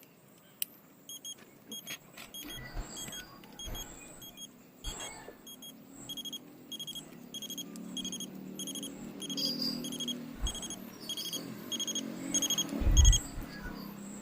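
Orpat quartz alarm clock's electronic beeper sounding, short high beeps in quick pairs that grow louder and stop about thirteen seconds in. Light handling knocks run underneath, with a loud low thump just as the beeping stops.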